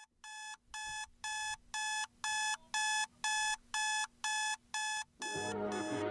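Electronic alarm beeping, about two short beeps a second, growing louder over the first few. Background music comes in about five seconds in.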